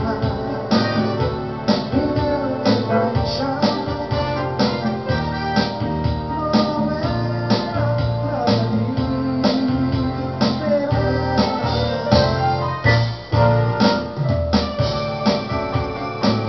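Instrumental music: keyboards, piano and organ-like, over bass and a steady beat.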